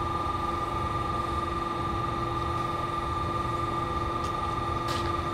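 Steady machinery hum in a bus wash bay: an even low rumble with several steady whining tones over it, unchanging throughout.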